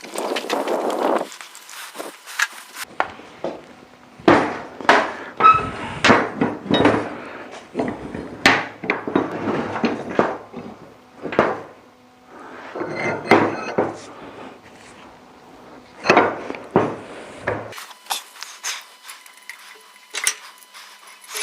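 Irregular metal knocks and clanks, some with a brief ring, mixed with stretches of scraping, from work on a rusted blacksmith's post vise.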